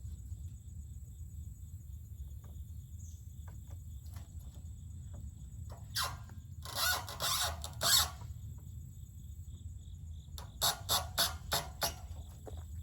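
Short, loud squeals: a few spaced ones around the middle and a quick run of about six near the end. Underneath is a steady low rumble and the high, steady buzz of insects.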